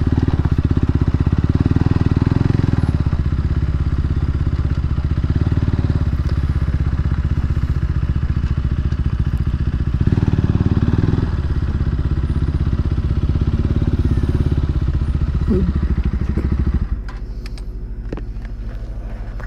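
KTM RC sport bike's single-cylinder engine with an aftermarket exhaust, ticking over at low speed and idle with an even pulse. It briefly picks up about two seconds in and again around ten seconds in, then drops noticeably in level near the end.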